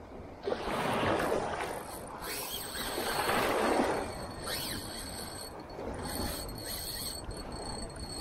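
Two surges of waves washing against the groyne rocks, each lasting about a second and a half, then quieter water noise with a thin steady high whine from about halfway through.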